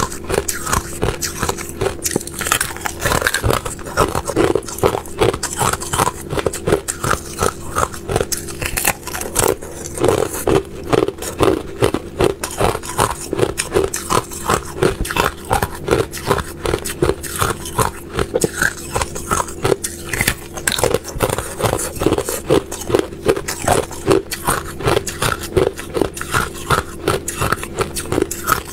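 Thin sheets of clear ice being bitten and chewed close to the microphone: rapid, continuous crunching and cracking. A steady hum runs underneath.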